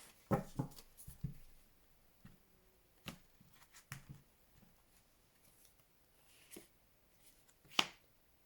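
Tarot cards being shuffled and handled, soft riffling and flicking at first, then a few light taps. A sharper click comes near the end.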